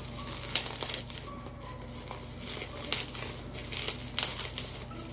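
Bubble wrap crinkling and crackling in irregular bursts as an item is pulled out of it by hand.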